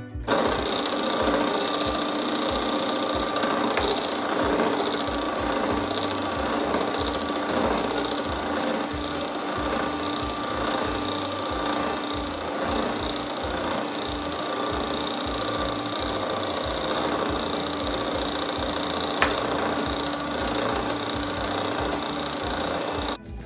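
Electric hand mixer running steadily at speed, its wire beaters whipping egg whites and sugar into meringue in a glass bowl.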